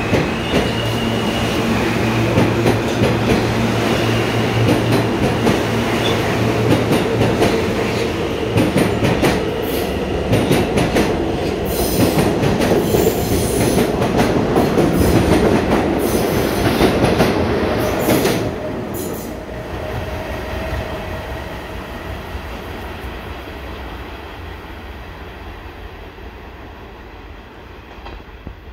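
R160A subway train with Alstom propulsion pulling out of the station past the platform: a steady motor hum and wheels clattering over rail joints, loudest as the last cars pass. About eighteen seconds in it drops off, then fades steadily as the train pulls away.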